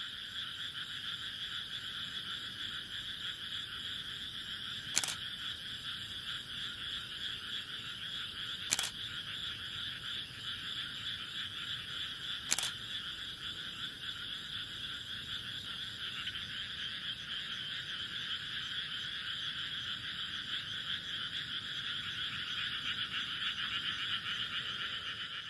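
Dense, steady chorus of rice-paddy frogs calling at night, swelling a little near the end. Three sharp camera shutter clicks cut through it, about 5, 9 and 12.5 seconds in.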